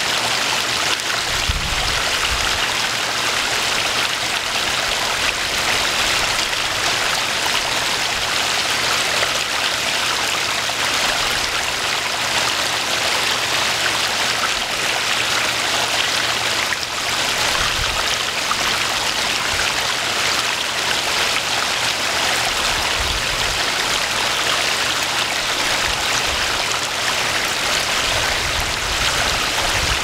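Garden pond waterfall splashing steadily into a koi pond, an even rushing of water that does not change.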